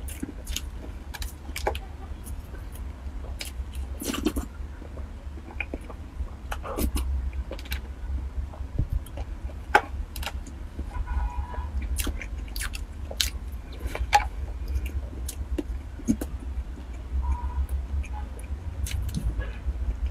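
Close-up mouth sounds of biting and chewing soft cream-filled sponge cake roll: scattered wet clicks and smacks, with occasional taps of a plastic food tray, over a steady low hum.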